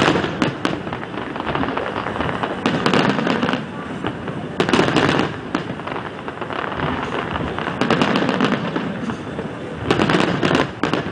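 Aerial fireworks display bursting: a dense, continuous run of bangs and crackles, with heavier clusters about three, five and ten seconds in.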